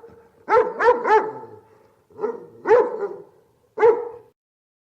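A dog barking: six short barks in clusters, three quick ones, then two, then a last one about four seconds in.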